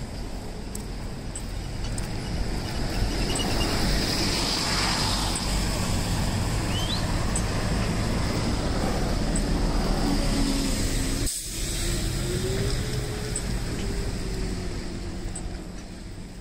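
City street traffic with a bus driving past close by, the noise swelling a few seconds in and staying loud through the middle. A low engine hum rises and falls in pitch near the end.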